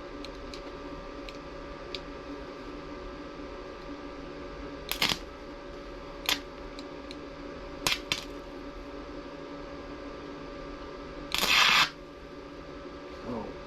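Small stick welder striking an arc in short bursts: four brief crackles, then a longer, louder half-second burst near the end, over a steady hum.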